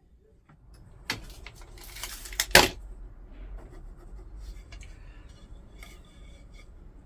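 Workshop clamps being undone and handled: sharp metal clicks and clunks, the loudest about two and a half seconds in, followed by lighter clicks and rattles.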